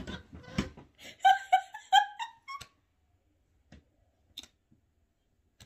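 A woman giggling in four or five short, high-pitched bursts after some rustling, then near silence with a few faint clicks.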